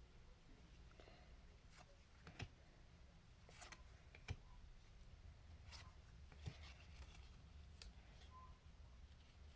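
Faint, scattered taps and clicks of trading cards being handled and flipped through, over a low steady hum.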